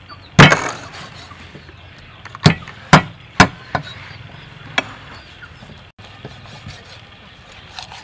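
Cleaver chopping down through chicken claws onto a wooden chopping board: one hard chop about half a second in, a quick run of three chops around the three-second mark, then two lighter ones.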